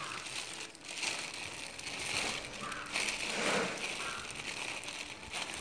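Clear plastic fish bag crinkling and rustling as hands work it open, half in the pond water.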